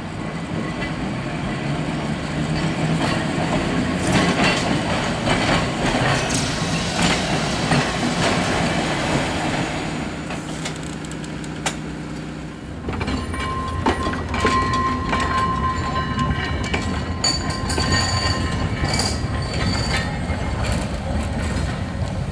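Manx Electric Railway tramcar and trailer rolling slowly over the track, the wheels rumbling and clicking over rail joints and points. In the second half the wheels give a brief high squeal.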